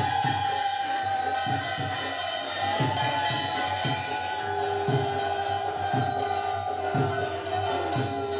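Devotional puja music with a steady drum beat and jingling percussion under long held notes; a further steady note comes in about halfway through.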